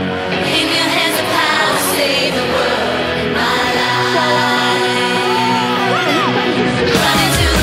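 Background music with singing, a steady dense song mix; a heavier, louder section starts near the end.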